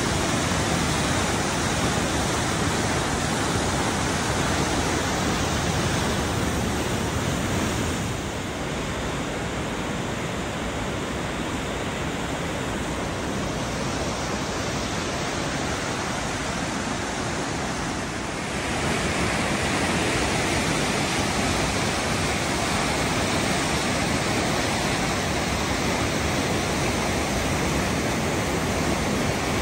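Whitewater of the glacier-fed Glomåga river rushing through a narrow marble gorge: a steady, full rushing of water, a little softer for about ten seconds in the middle.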